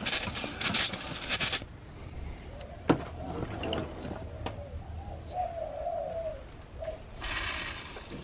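Aerosol degreaser spraying in a steady hiss for about the first second and a half, then a single sharp click. A dove coos in the background in the middle, and another hiss starts near the end.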